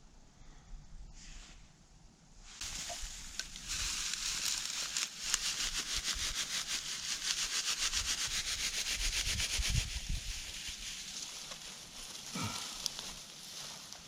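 Dry tinder being rubbed and scraped by hand in quick, rapid strokes: a scratchy rustling that starts about two and a half seconds in and eases off near the end.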